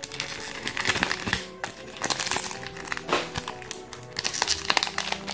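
Foil wrapper of a Pokémon trading-card booster pack crinkling as it is torn open and handled, in many quick crackles. Background music plays underneath.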